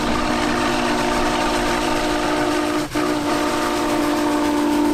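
Steam locomotive whistle blowing one long, steady blast of several tones sounding together. It breaks off for an instant about three seconds in, then carries on, over the low rumble of the working locomotive.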